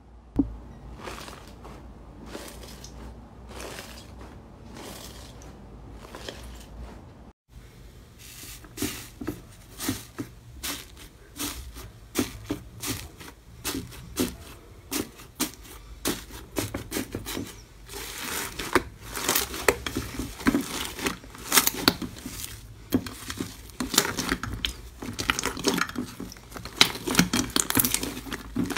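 Slime being squished and kneaded by hand. At first it is foam-bead slime giving soft, sparse crackling. After a brief drop-out about seven seconds in, a different slime is pressed and stretched in a glass dish, and there are dense crisp clicks and pops that grow busier and louder toward the end.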